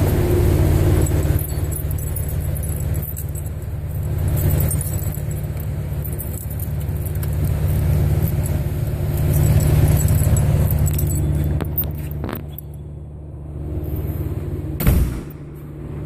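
Keys jangling and clicking in the lock of a metal shop door, then a latch click and a bang near the end as the door is shut. Under it runs a steady low hum from a neighbouring business's machines, loud enough to be a noise nuisance.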